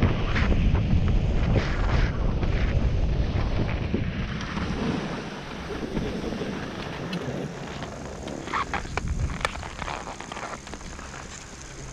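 Wind buffeting the microphone and skis hissing over snow at speed, dying down as the skier slows to a stop; a few sharp clicks near the end.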